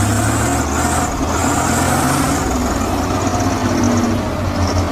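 Heavy truck engine running steadily with a deep, low hum.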